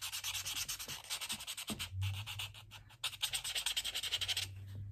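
Felt-tip permanent marker scribbling quickly back and forth on a paper plate to fill in a patch of colour: a fast, even run of scratchy strokes, with a couple of short pauses.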